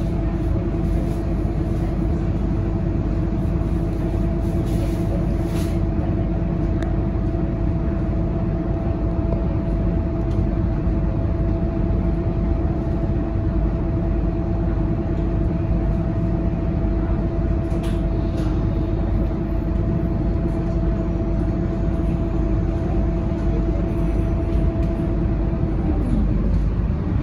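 Scania K230UB bus heard from inside the passenger cabin, its diesel engine idling with a steady, even hum while the bus stands still. Right at the end the pitch dips and then begins to rise as the engine picks up to pull away.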